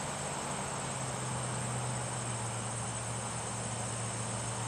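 Steady chorus of insects chirring, over a continuous low hum.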